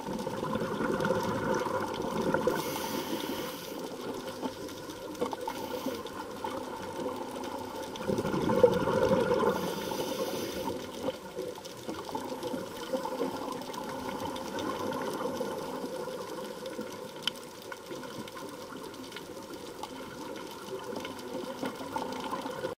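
Underwater noise from a scuba dive, heard through the camera's housing: a steady rush of water and bubbles from the diver's breathing, with a louder surge of exhaled bubbles about eight seconds in.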